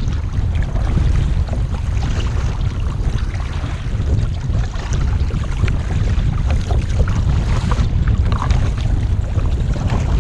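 Strong wind buffeting the microphone in a heavy, steady rumble, with faint splashes and crackles of water around a kayak being paddled into the wind.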